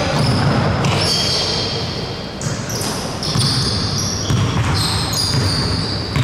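Indoor basketball game: the ball bouncing on the court, with repeated short, high-pitched sneaker squeaks on the hardwood floor.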